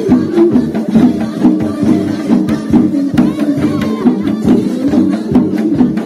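Lively dance music with a quick, steady percussion beat under a melody.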